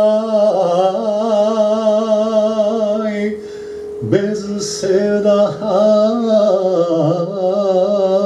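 A man singing a Bosnian sevdalinka into a microphone, drawing out long held notes with a wavering, ornamented pitch. There is a short break for a breath about three seconds in.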